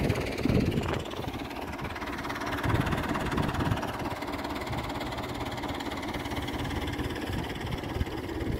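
Fiat 640 tractor's four-cylinder diesel engine running steadily under load as it pulls a mouldboard plough through the soil.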